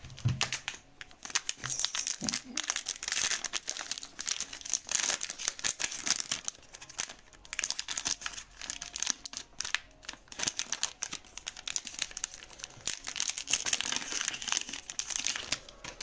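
Foil wrapper of a Panini Donruss Optic trading card pack being torn open and handled, a dense crinkling and crackling that keeps going with a few brief lulls.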